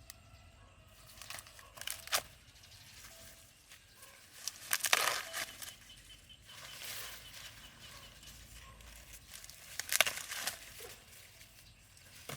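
Dry corn leaves and husks rustling and tearing in short, crackling bursts: a few snaps about two seconds in, a louder burst around five seconds, and another near ten seconds.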